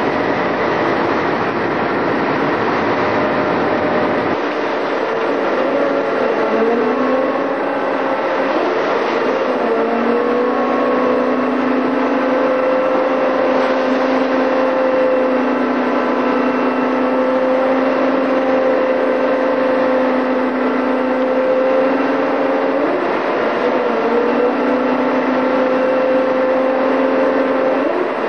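Marine diesel engine running under load, its pitch rising to a new steady note about five seconds in, again around ten seconds, and dipping and rising again near the end, over the wash of rough sea. A low rumble of wind and water on the microphone fills the first four seconds and stops abruptly.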